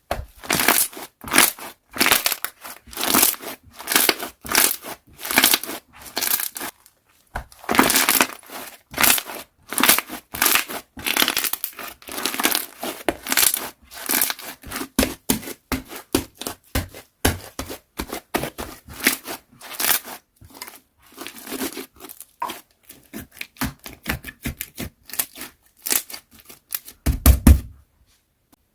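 Slime being squeezed and pressed by hand, giving an irregular run of crackly, crinkling pops several times a second, with a low thump near the end.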